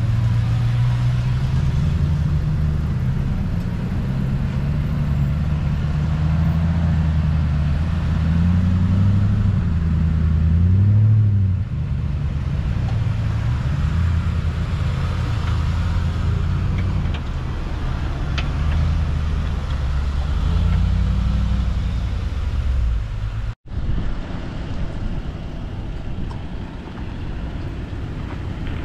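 Engines of lifted off-road SUVs driving slowly across loose sand, their pitch rising and falling as the drivers get on and off the throttle. The sound breaks off abruptly about 23 seconds in, giving way to a steadier, quieter low rumble.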